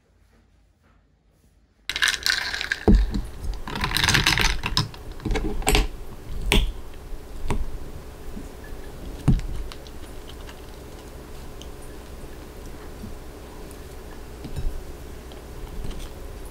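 Kitchen handling sounds: things being picked up and set down with light knocks and clicks, and brief rustles. They start suddenly about two seconds in, are busiest over the next few seconds, then thin out to occasional clicks over a low steady hum.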